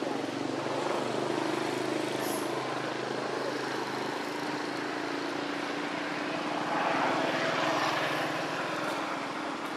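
Steady engine drone with a low, even hum that swells briefly about seven seconds in.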